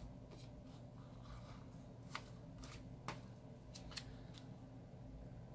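Faint paper handling: a planner sticker being peeled from its sheet and handled, with a few light clicks and rustles over a low steady hum.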